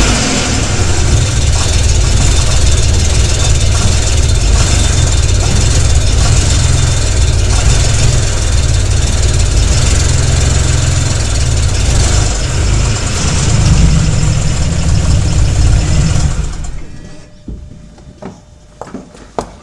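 BMW 335ix's N54 twin-turbo straight-six running on faulty fuel injectors, then shut off about three-quarters of the way through. A few sharp clicks follow.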